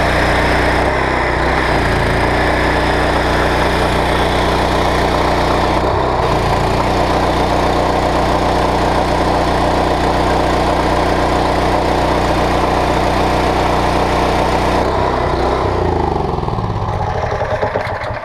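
Honda GX390 single-cylinder petrol engine running steadily, driving a pressure washer's belt-driven pump. About fifteen seconds in it is shut off and winds down, its pitch sliding lower until it stops.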